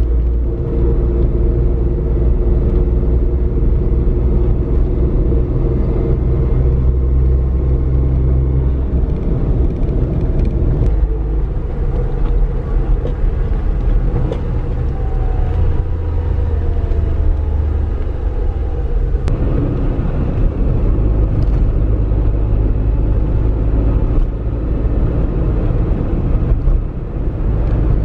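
A car driving: a steady low engine hum and road rumble, with the engine note shifting a little twice.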